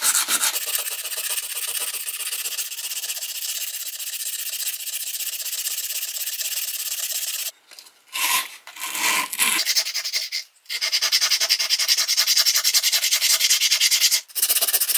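Sandpaper rubbed by hand in rapid back-and-forth strokes on the steel head of a hatchet, scouring off old paint. The rubbing breaks off briefly a few times and starts again.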